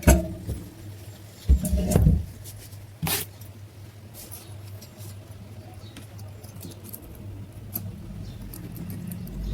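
A table fan being handled, with a few clattering knocks in the first three seconds over a steady low electrical hum. Near the end a low whirring builds as the fan starts to run.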